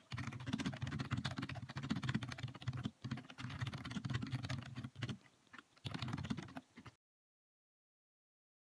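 Fast typing on a computer keyboard, a dense run of key clicks, a brief pause, then a second shorter run; the sound cuts off to silence about seven seconds in.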